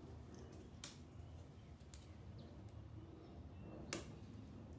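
Faint handling clicks as fishing line is worked behind a car's trunk badge, with two sharper clicks, one about a second in and a louder one near the end.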